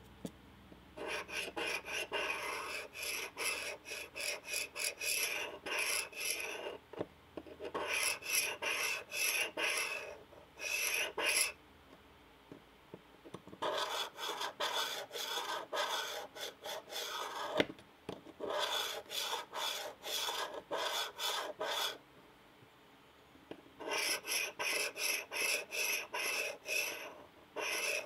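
Hand filing on steel: quick back-and-forth file strokes, about three a second, in bouts of a few seconds with short pauses between.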